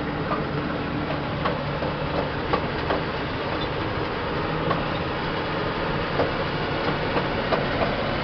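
Truck engine running steadily under way, heard from inside the cab, with the cab rattling and knocking irregularly on a rough dirt road.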